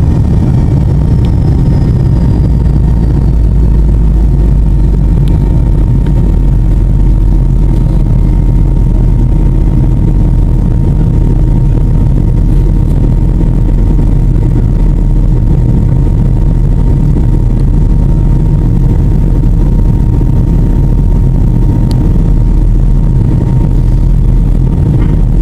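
Steady engine and airflow noise heard inside an airliner cabin in flight, loud and heavy in the low end, with a faint steady whine over it.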